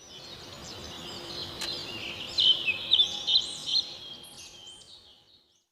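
Small birds chirping and twittering in many short, quick calls over a faint background hiss; the chirping is busiest in the middle, then fades out.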